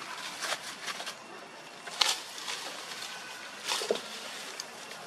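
Dry leaf litter rustling and crackling under light movement, with a few sharp crackles, the loudest about two seconds in, over a steady background hiss.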